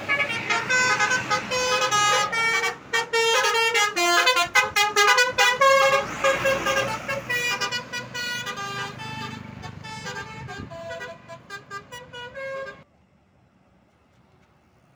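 Bus "basuri" musical horns playing a quick melody of shifting notes as a tour bus moves off. The sound cuts off suddenly about two seconds before the end, leaving near silence.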